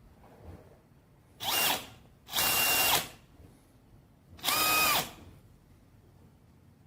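DEWALT DCD996B 20V brushless cordless hammer drill run three times in short bursts of under a second, each with a motor whine, the last rising as it spins up and falling as it winds down.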